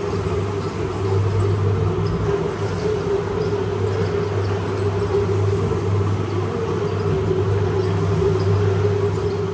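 Single-disc rotary floor scrubber running as it is pushed across a wet, foam-covered rug: a steady motor hum with the even swish of the spinning brush scrubbing shampoo into the pile.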